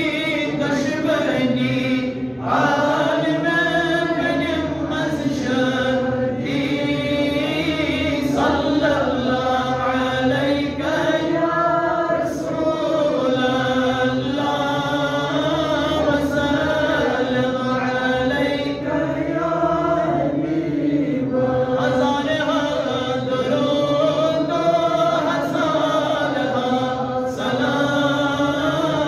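A man chanting a solo Islamic devotional recitation, long held notes sliding up and down in a melismatic line, with only brief breaths between phrases.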